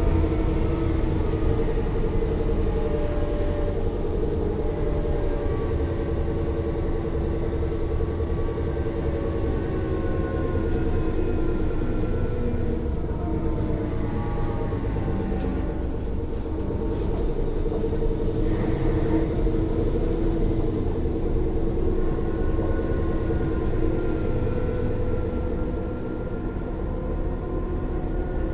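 Mercedes-Benz O 405 N1 low-floor city bus heard from inside while driving: the loud diesel engine drones steadily, and the axle gear whine rises and falls in pitch over it.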